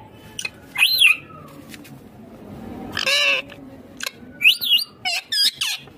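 Indian ringneck parakeet giving a series of short, shrill squawking calls: one about a second in, a longer one around three seconds, and several quick calls close together near the end.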